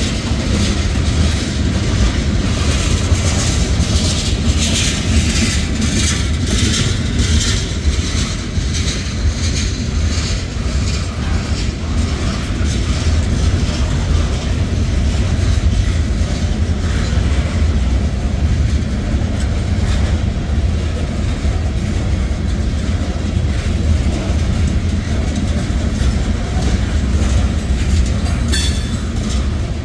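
Freight train tank cars and covered hopper cars rolling past close by: a steady low rumble with wheels clacking over rail joints, the clacks thickest in the first ten seconds. A short high squeal comes near the end.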